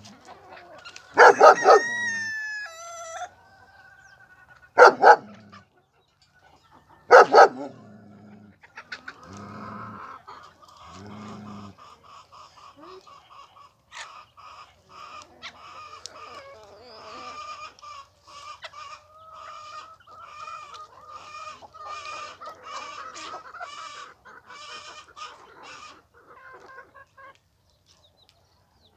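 Chickens clucking and cackling in a long run of quick repeated calls, after three loud short calls in the first few seconds.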